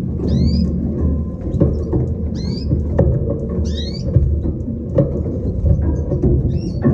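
Small cage finches chirping: short, high, sliding call notes about every two seconds, over a loud, steady low hum.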